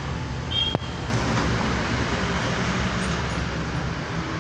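Steady low mechanical rumble in the background, with one sharp click a little under a second in.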